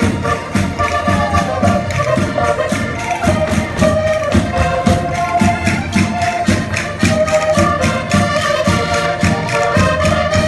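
Traditional Portuguese folk music played live for folk dancing: an accordion melody over a brisk, steady beat of drum and percussion.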